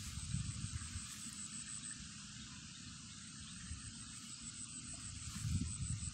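Outdoor field ambience: a steady hiss with a thin high insect drone, over low wind rumble on the microphone that swells near the end.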